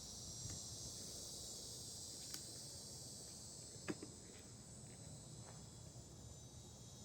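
Faint, steady high-pitched insect chorus, with a few light clicks and one sharper knock about four seconds in.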